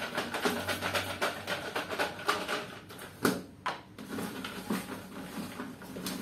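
Folded paper chits rattling and rustling inside a clear plastic jar as it is shaken and tipped, then two sharp clicks a little after three seconds in as the jar's plastic lid comes off and is set down, followed by softer rustling as a hand rummages among the chits.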